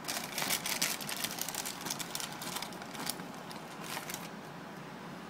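Cardboard box flap being opened and a card in a rigid plastic holder slid out past it: a run of light crackles and scrapes that stops about four seconds in.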